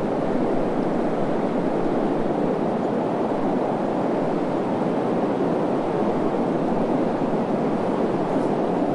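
Steady desert wind: an even noise with no gusts, tones or separate events.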